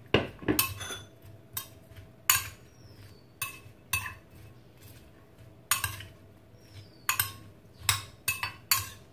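Metal cutlery clinking against a bowl while tossing a cucumber and onion salad: about a dozen irregular clinks.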